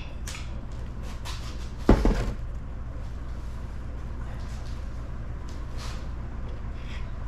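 A single heavy clunk about two seconds in, as the oil pump is worked off the 350 small-block engine, with a few light ticks of tools on metal. A steady low hum runs underneath.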